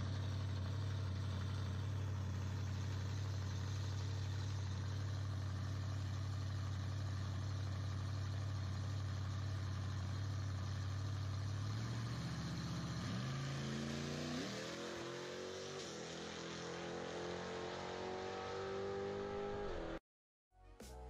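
Square-body pickup truck's engine running steadily at the drag strip's starting line, then about twelve seconds in it revs up as the truck launches, the pitch climbing in steps through the gears until the sound cuts off abruptly near the end.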